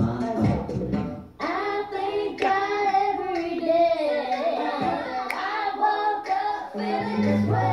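A young girl singing into a microphone over backing music; the music's steady bass drops out about a second in and comes back near the end.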